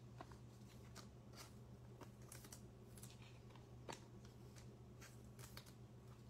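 Faint clicks and taps of trading cards being handled, squared into a stack and set down on a table, over a low steady hum.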